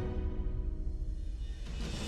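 Background music in a quiet passage: the higher notes fall away and mostly low tones remain, building again near the end.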